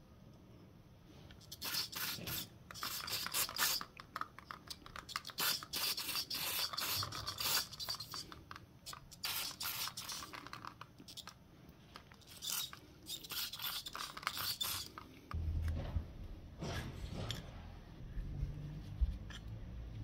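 Small metal pick scraping grime off a motorcycle's front brake caliper and pads, in many short scraping strokes that stop about three-quarters of the way through. Dull handling knocks and rumble follow as the caliper is moved.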